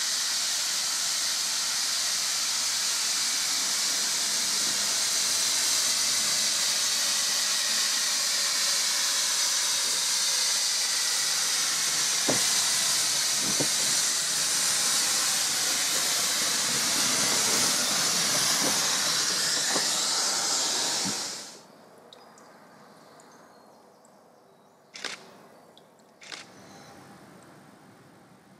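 Saddle-tank steam locomotive venting steam with a loud, steady hiss, a few faint ticks under it. The hiss cuts off suddenly about three quarters of the way in, leaving quiet room tone with two short knocks.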